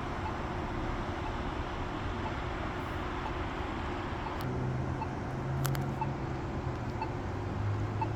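Polara iNS accessible pedestrian signal push button's locator tone ticking faintly about once a second, over steady street traffic. A vehicle's engine hum comes in about halfway through, and there are two sharp clicks.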